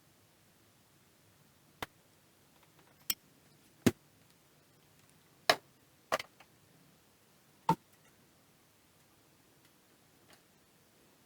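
Six scattered sharp clicks and knocks of small hard parts being handled, spread over the first eight seconds, then only low room tone.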